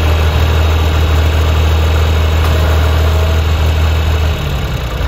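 John Deere 1520 tractor engine idling with a steady low drone, which turns rougher and less even about four seconds in.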